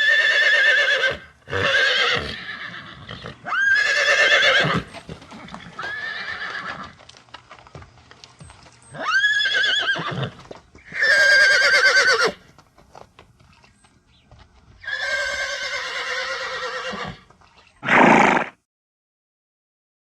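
Horse whinnying in a series of about eight separate neighs, each a second or two long and wavering in pitch, with scattered knocks between the calls. The last, near the end, is a short, rougher call followed by silence.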